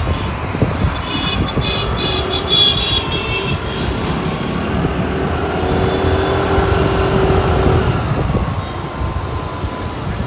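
TVS Jupiter scooter ridden at about 30–40 km/h: a steady engine hum under heavy low wind and road rush on the microphone. The engine note rises for a couple of seconds past the middle. About a second in, a high-pitched sound from the traffic lasts for a couple of seconds.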